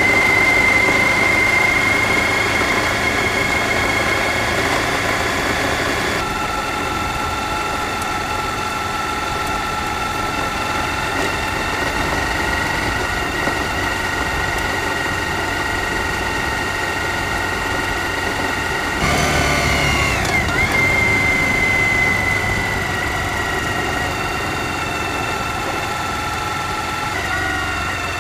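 Suzuki V-Strom DL1000's V-twin engine running steadily while the bike is ridden along a dirt track. The engine note shifts about six seconds in, then dips and climbs again about two-thirds of the way through.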